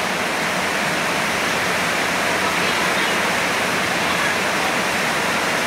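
A steady, even rush of falling water that does not let up.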